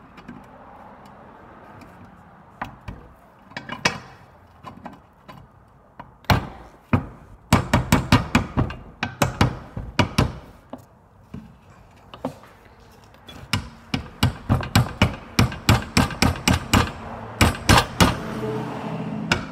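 Hammer strikes driving a rubber bushing into a Subaru Outback control arm through a cup held on top. A few light taps at first, then two long runs of quick blows, several a second, with a short pause between them.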